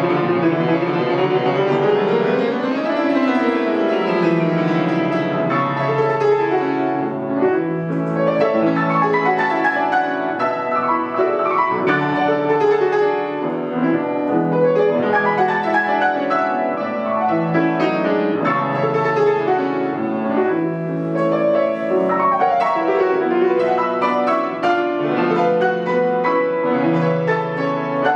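Solo classical piano on an Estonia grand piano: a sweeping run in the first few seconds, then a quick passage of repeated chords over a moving bass line.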